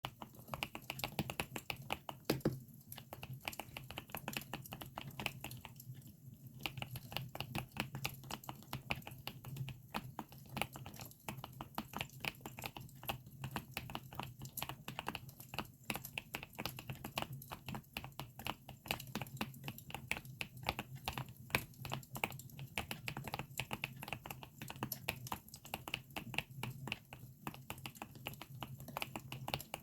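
Continuous typing on a GMK67 mechanical keyboard fitted with Akko Lavender switches, many keystroke clicks a second, mixed with a campfire crackling track over a steady low hum.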